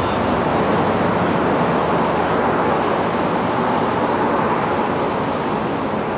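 Steady traffic noise: an even hiss and rumble of road traffic, with no single event standing out.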